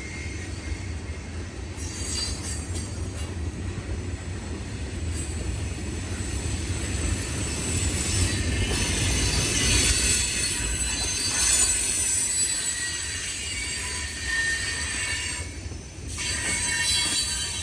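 Freight train rolling past with a steady low rumble and high-pitched squealing from its wheels, loudest about halfway through.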